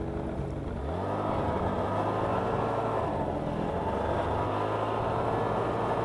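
Snowmobile engine running as the sled rides along the trail. It speeds up about a second in, then runs steadily.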